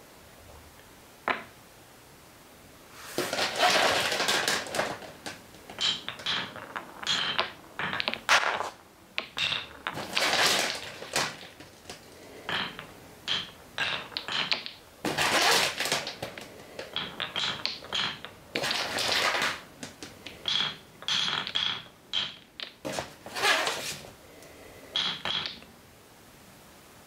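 Wooden balls rolling down a wooden marble-run track and clacking into one another as they queue in the chute: one sharp click about a second in, then irregular bursts of rolling and clattering from about three seconds in until shortly before the end.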